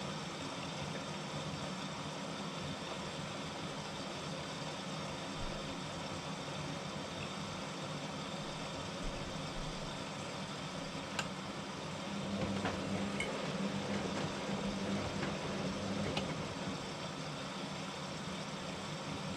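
Hotpoint WMA40 washing machine in its main wash: a steady running sound from the machine, growing louder with a motor hum for a few seconds about two-thirds of the way through as the drum turns the load, with a few sharp clicks.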